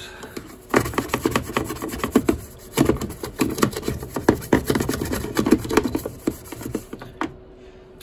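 Wet brush scrubbing the inside of a washing machine's detergent-drawer housing: quick back-and-forth bristle strokes on plastic, working at black mould, with a short pause about two and a half seconds in and stopping near the end.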